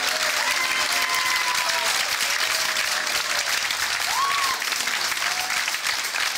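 A crowd applauding steadily, with a few voices rising over the clapping.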